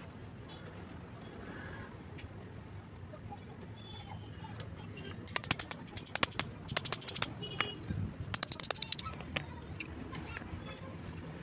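Metal hand tools clinking and clicking as a copper-tube flaring tool is handled and a copper tube is clamped into its flaring bar, with a dense run of sharp clinks through the middle of the stretch, over a steady low background noise.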